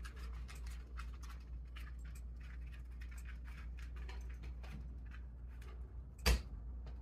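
Quick, irregular clicking of Fire TV Stick remote buttons, several a second, as the on-screen keyboard is worked letter by letter, over a steady low hum. One louder click comes about six seconds in.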